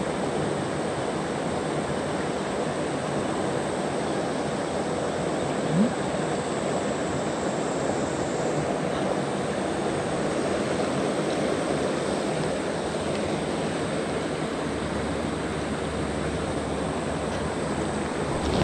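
Steady rush of a mountain river's current running over stones, with one brief knock about six seconds in.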